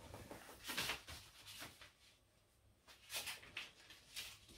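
A sheet of origami paper rustling in a few short, faint rustles as it is folded and creased by hand.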